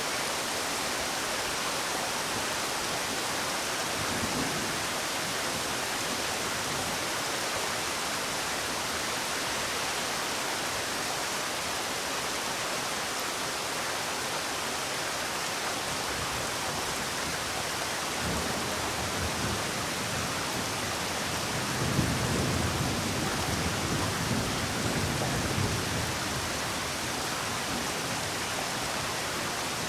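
Steady rainfall with an even hiss. Low rumbles of thunder swell in a few times, the loudest a little over two-thirds of the way through.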